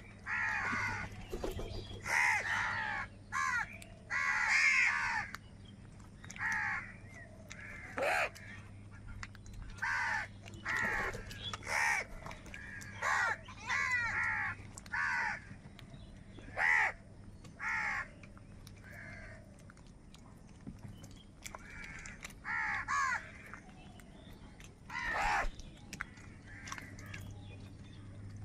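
Crows cawing over and over, short harsh caws coming about once a second, with a brief lull about two-thirds of the way through.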